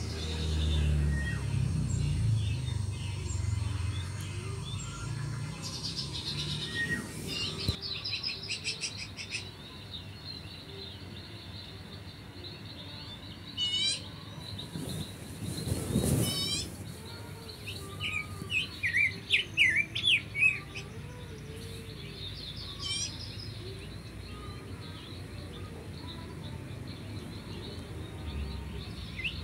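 Small birds chirping, with scattered short chirps and quick trills and a cluster of louder calls about two-thirds of the way in.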